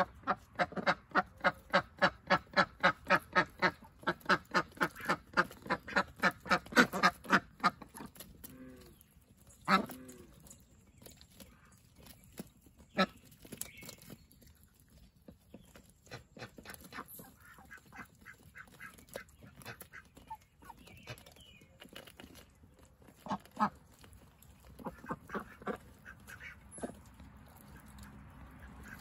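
A flock of Indian Runner ducks quacking. For the first eight seconds or so there is a fast, loud run of quacks, about three or four a second, and after that only scattered single quacks.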